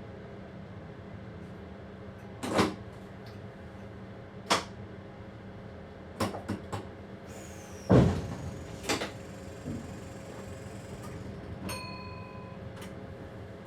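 Train driver's cab: a steady hum of the cab equipment, broken by a series of sharp clicks and knocks, the loudest about eight seconds in, and a short electronic beep near the end.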